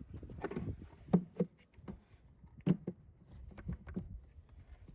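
Wooden beehive boxes and frames being handled: a handful of sharp knocks and clunks over a low rumble.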